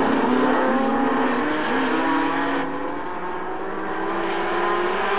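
A pack of dirt-track stock cars racing past, their engines running hard with several engine notes overlapping and rising and falling. The sound dips a little about halfway through, and one engine climbs slowly in pitch near the end.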